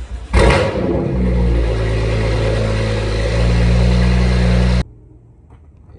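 BMW M2's engine, decatted and on a Stage 2+ tune, running loud. It opens with a sudden burst, then holds a steady note that swells a little after about three seconds, and cuts off abruptly near the end.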